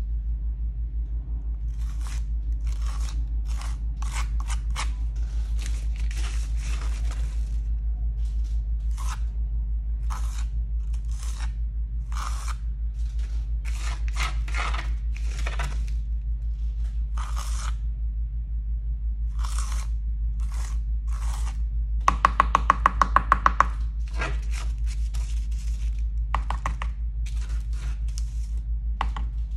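Gritty modeling paste, mixed with sand, being stirred and scraped: many short crunching scrapes at an irregular pace, with a quick run of about eight sharp taps a little over twenty seconds in.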